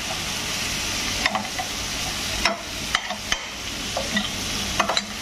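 Chicken and tomatoes sizzling in oil in a steel frying pan while a metal spoon stirs them, clinking and scraping against the pan several times. The tomatoes are breaking down in the fat to form the karahi gravy.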